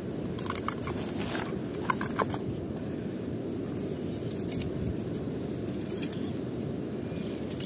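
Outdoor background sound: a steady low rumble with a few short chirps and clicks in the first couple of seconds.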